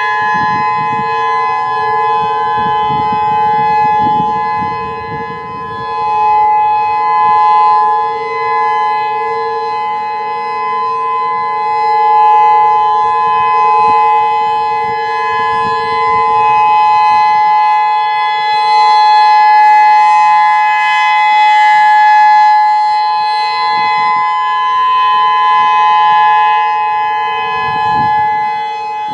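Federal Signal EOWS 612 outdoor warning siren sounding its steady alert signal: a constant multi-tone chord with no rise or fall in pitch, swelling and dipping slowly in loudness.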